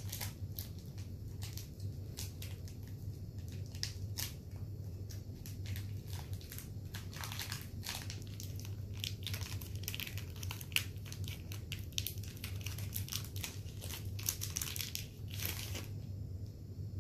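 Plastic candy-bar wrapper on a Snickers bar crinkling and tearing as it is pulled open by hand, in rapid irregular crackles that die away near the end. A steady low hum sits underneath.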